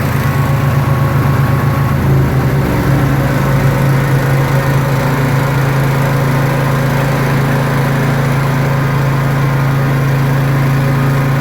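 A motor running loudly and steadily with a low hum, its pitch changing and then settling about two seconds in.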